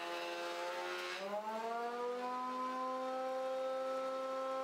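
Jet JJP-8BT jointer/planer's 13-amp motor and cutterhead pulled down in pitch by a deep planing cut through mahogany. About a second in, the cut ends as the board leaves the planer, and the motor winds back up to full speed. It then runs on as a steady, unloaded whine.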